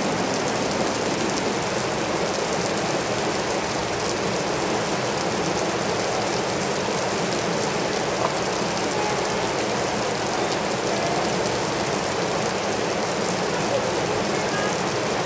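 A small waterfall with water falling in thin streams and drops down a mossy rock face, making a steady spattering rush.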